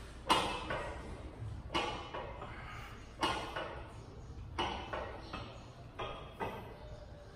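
Metal clanks and rattles from a gym row machine, one with each rep, about every second and a half, each ringing briefly.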